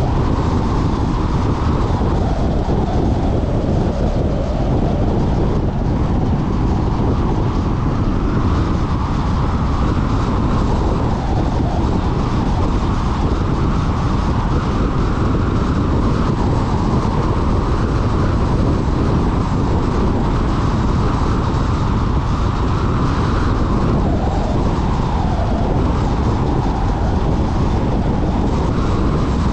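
Car driving at road speed on a paved highway: steady tyre and wind noise with a low rumble.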